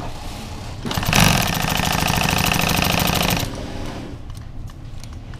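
Large wood chipper running with a fast, even mechanical clatter that grows loud about a second in, holds for a couple of seconds, then drops back.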